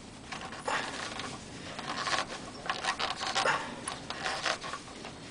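Cloth rustling and scraping in short, irregular bursts as a hand works a rag around an engine's dipstick.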